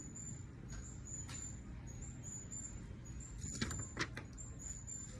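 Light clicks and knocks of ring light and tripod parts being handled, with two sharper clicks a little past halfway, over a low steady rumble.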